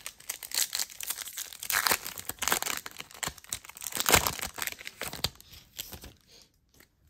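Foil wrapper of a baseball card pack crinkling and tearing as it is ripped open by hand, loudest about four seconds in, then the stack of cards rustling as it is pulled out.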